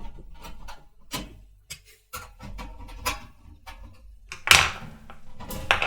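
Small metallic clicks and scrapes of case screws being worked loose and handled on a desktop computer's metal case, with a louder clatter about four and a half seconds in and another near the end.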